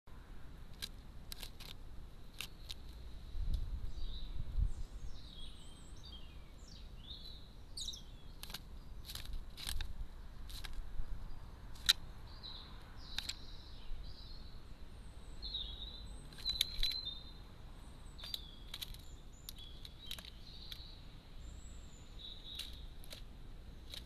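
Wild birds chirping and calling in short high notes, mingled with scattered sharp clicks and ticks and a faint steady high whine.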